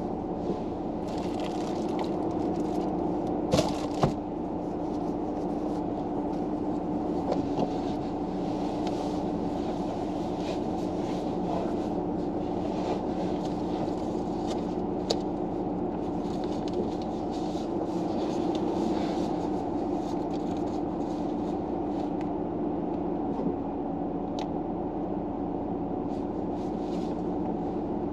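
Steady hum inside a car cabin, such as a running engine or its fan, with two sharp clicks about four seconds in and soft rustling now and then.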